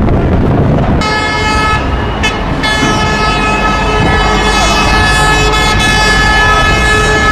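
A vehicle horn held down: one steady pitched blare that starts about a second in, breaks off briefly a little after two seconds, then sounds on without a break, over steady low background noise.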